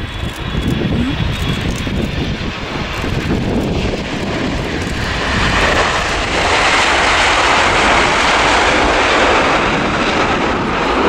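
Boeing 787-8 airliner's jet engines during touchdown and landing roll: a low rumble, then about six seconds in a louder, steady rush as the aircraft slows on the runway with its spoilers up, typical of reverse thrust being applied.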